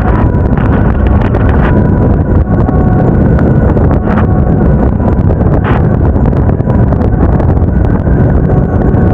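Wind buffeting the action-camera microphone over the motor scooter's engine and road noise while riding, with faint steady tones coming and going in the background.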